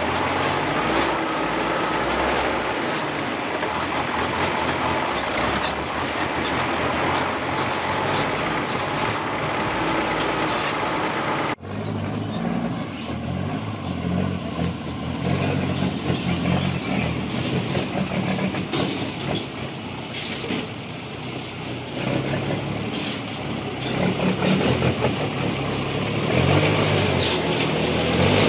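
REO 6x6 army truck's engine and drivetrain running under load, first heard close under the chassis. After a sudden cut the laden truck climbs toward the listener on a rough track, getting louder near the end.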